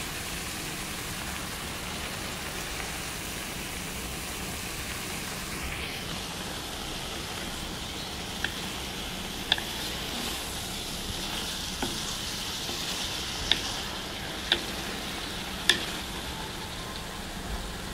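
Shredded vegetables sizzling steadily in a pot as they are stir-fried, with a few sharp clicks of the spatula against the pot in the second half.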